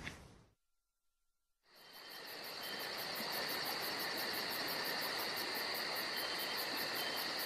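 About a second of silence, then crickets fade in: a steady high chirring with a fast, even pulse of about five to six a second.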